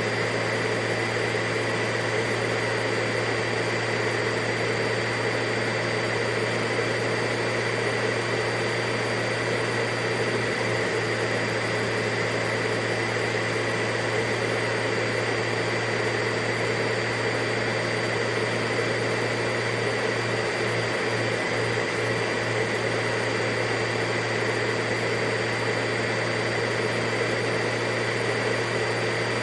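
Vacuum cleaner running steadily, a continuous hum under an even rushing noise with a faint whine above it.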